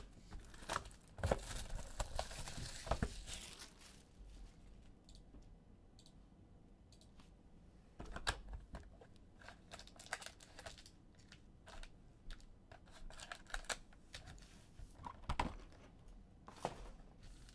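Plastic wrap being torn and crinkled off a sealed trading-card box, followed by scattered light clicks and taps as the cardboard box is opened and the foil packs are taken out and set down.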